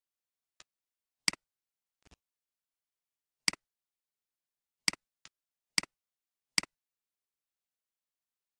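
Computer mouse button clicks at irregular intervals: five sharp clicks, each a press followed at once by a softer release tick, with a few fainter clicks between them.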